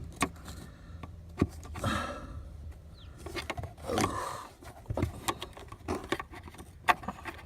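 Scattered clicks, knocks and light scraping of hands handling plastic dashboard trim and the fibre-optic connector and its wiring, over a low steady hum.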